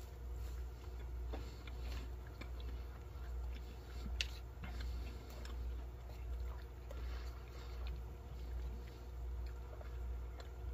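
Faint chewing, with soft clicks of a plastic fork scooping rehydrated scrambled egg and steak against a plastic tray, and one sharper click about four seconds in, over a steady low hum.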